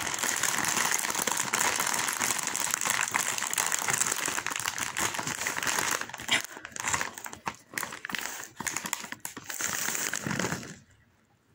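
Foil snack bag of popcorn crinkling steadily as it is pulled open and handled, then crackling in separate short crinkles as popcorn is taken out. It falls quiet just before the end.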